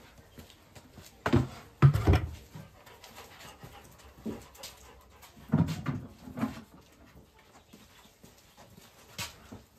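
An animal close by, making two clusters of short, loud sounds about a second and a half and five and a half seconds in, with a few smaller ones between.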